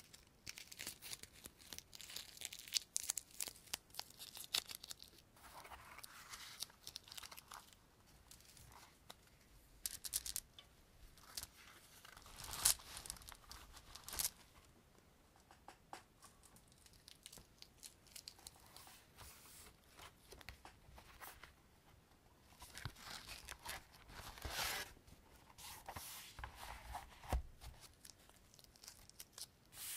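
Close-up crinkling, tearing and scratching of objects handled on a desk, in irregular crackly runs with many sharp clicks; the loudest click comes a little before halfway.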